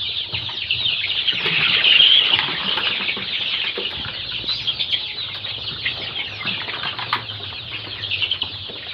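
A crowd of young poultry chicks peeping continuously, many short high chirps overlapping.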